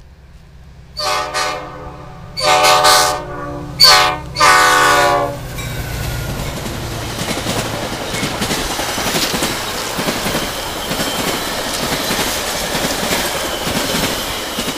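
Diesel locomotive horn sounding four blasts, the third one short, in the long-long-short-long pattern of the grade-crossing signal, over the low hum of the engine. Then the steady rumble and clatter of the train's wheels passing close by.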